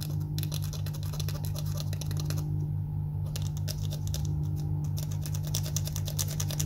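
Quick, irregular scratching and scraping on a modem circuit board as the water-corroded area near the phone-line input is cleaned, over a steady low hum.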